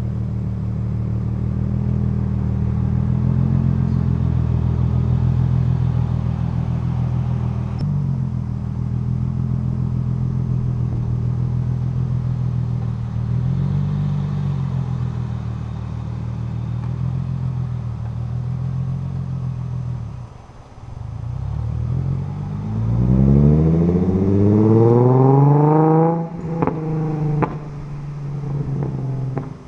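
Nissan 350Z Nismo's 3.5-litre V6 through a Tomei cat-back exhaust, idling steadily for about twenty seconds. It is then revved up in a rising sweep and held briefly before the throttle snaps shut, followed by a few sharp crackles and pops from the exhaust on the overrun.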